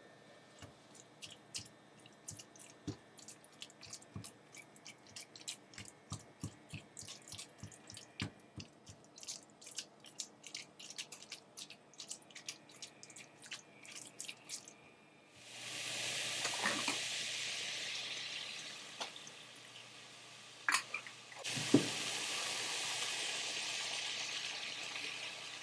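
Light, irregular clicks and taps for about fifteen seconds, then a kitchen tap running in two spells, with a couple of sharp knocks in the short gap between them.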